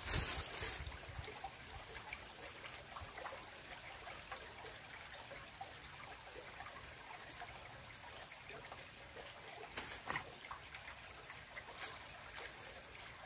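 Shallow rocky stream trickling and babbling over stones, a faint steady wash of water with scattered small clicks. A brief louder burst of noise comes right at the start, and two short sharper sounds about ten and twelve seconds in.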